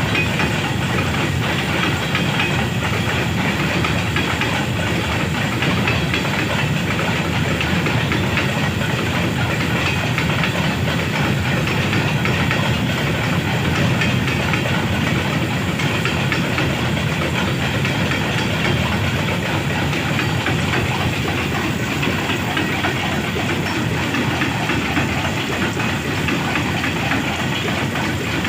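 Freight train of wagons rolling steadily past on the rails, hauled by a GEU-40 diesel locomotive, with the hiss of heavy rain.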